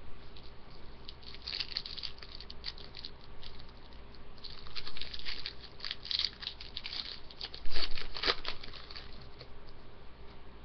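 Shiny wrapper of a pack of hockey cards crinkling and tearing as it is handled and opened, with a run of small crackles; the loudest crackle comes just under eight seconds in.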